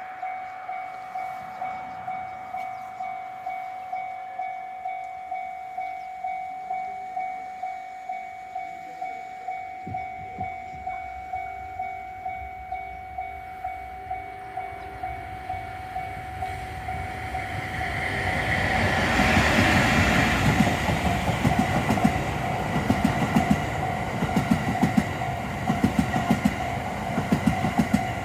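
Japanese level-crossing warning bell ringing in steady repeated dings, about one and a half a second. A train's rumble builds from about ten seconds in and swells to a loud rush as it reaches the crossing. Then the rhythmic clickety-clack of the Cassiopeia sleeper cars' wheels over the rail joints runs on under the bell.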